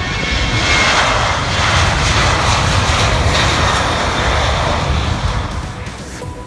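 Jet airliner's engines running loud on the runway close by: a steady, heavy rush that swells about a second in and eases off near the end.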